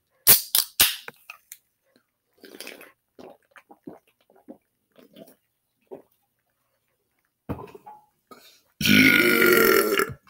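A few sharp clicks near the start and faint small noises, then a man's long, loud belch near the end, lasting over a second.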